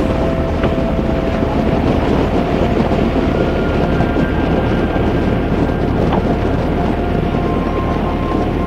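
Harley-Davidson V-twin motorcycle cruising steadily at highway speed, its engine rumble mixed with wind rushing over the microphone.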